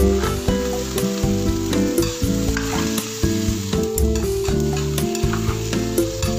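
Sliced bottle gourd and carrot sizzling in an oiled pan as they are stirred, under background music of held notes with a steady beat.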